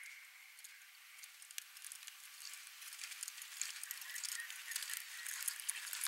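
Hoofbeats of a horse cantering on dry, dusty ground: a run of soft irregular thuds and crackles that grows louder as the horse comes closer.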